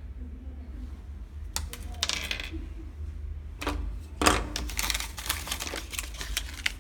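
Packaging being handled during an unboxing: bursts of rustling and small hard clicks and clatter as plastic-wrapped accessories and cardboard are taken out of the box. The busiest burst is in the second half.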